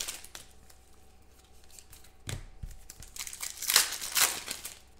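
Foil wrapper of a 2016 Contenders football card pack crinkling and tearing as it is ripped open and pulled off the cards, with a sharp tap a little over two seconds in and two louder bouts of crinkling near four seconds in.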